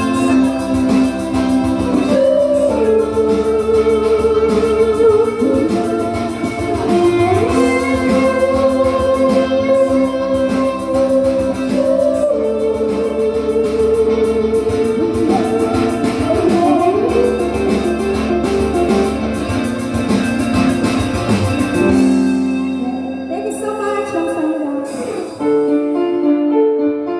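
Music: a song with a singing voice over guitar accompaniment. About three-quarters of the way through, the low accompaniment drops out and a sparser passage of held notes follows.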